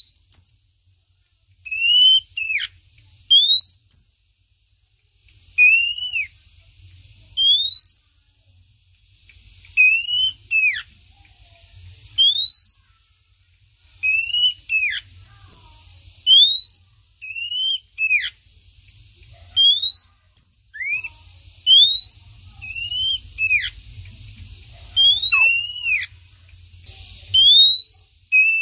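Female oriental magpie-robin's lure call: short whistled notes, some rising and some falling, repeated in phrases about every two seconds, used to call in a male. A thin steady high tone runs faintly under much of it.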